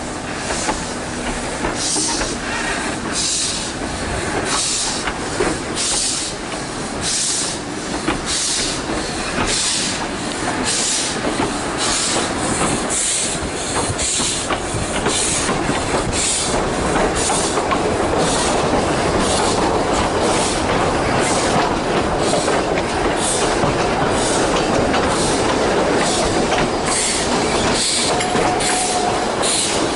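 Narrow-gauge steam tank locomotive pulling away, heard from the carriages behind it: a regular beat of exhaust chuffs that gradually quickens, over the rumble and clatter of the wooden coaches on the track, growing louder as the train gathers speed. Two short steady tones sound near the end.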